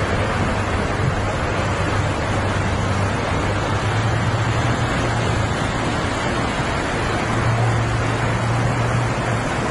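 Fast floodwater rushing over a low causeway, a dense steady rushing of water, with the low drone of heavy truck engines underneath. The drone grows louder about four seconds in and again near the end.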